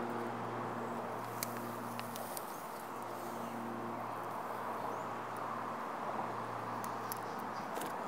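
Hands digging and sifting through loose potting soil mixed with vermiculite, a soft gritty rustle with a few sharp ticks as the mix trickles and falls. Under it runs a steady low hum.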